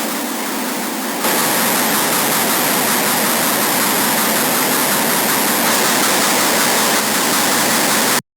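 Harsh noise wall: a dense, unchanging wall of distorted static that gets louder and brighter about a second in, then cuts off abruptly near the end.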